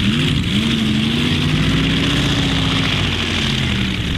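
Light Modified pulling tractor's engine running loud at full throttle while hauling the sled. Its note climbs slightly at first, then drops over the last second or so.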